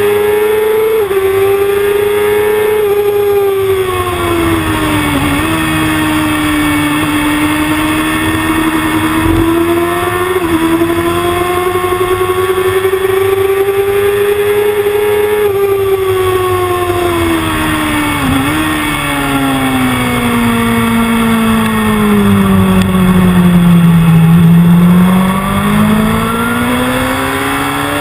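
Sports motorcycle engine heard from an onboard camera at track speed. The engine note is held high with brief dips about 5 and 10 seconds in, then falls steadily from about halfway as the bike slows, with a short break near 18 seconds, and climbs again near the end as the bike accelerates. Wind rushes over the camera throughout.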